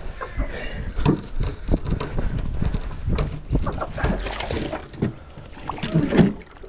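Knocks, rubbing and scuffs from a stand-up paddle board being carried and handled, heard through the board-mounted camera. A louder knock comes near the end as the board is set down on sand with the paddle laid on its deck.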